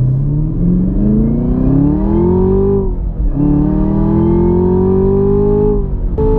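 Chevrolet Camaro ZL1's supercharged 6.2-litre LT4 V8 accelerating hard: the engine note climbs for nearly three seconds, drops with an upshift, and climbs again. Near the end it cuts to a different, steady engine drone.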